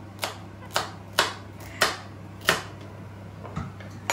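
Kitchen knife chopping carrot on a plastic cutting board: five sharp knocks, one every half second or so, then only a couple of faint taps near the end.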